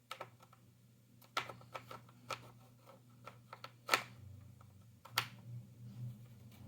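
Jigsaw puzzle pieces being handled and set down on a table: scattered small clicks and taps, the loudest about four seconds in.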